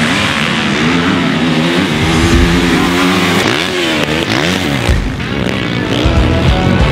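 450cc single-cylinder four-stroke motocross bike engine being ridden hard on a dirt track, its pitch dropping and climbing several times in the middle with throttle changes and gear shifts.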